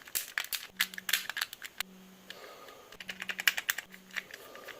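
Plastic fidget cube being played with: quick runs of sharp clicks from its buttons, in three bursts with a quieter gap in the middle.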